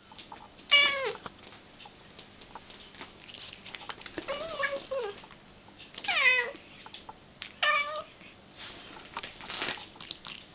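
A domestic cat meowing four times, short calls that fall in pitch at the end, the second one longer. She is begging eagerly for her favourite food, and the owner half-hears the meows as 'mama'.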